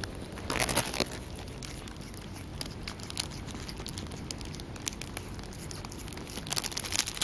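Plastic sheet crinkling and rustling under a mother cat as she shifts over her newborn kitten, with many small scattered clicks and louder rustles about half a second in and near the end.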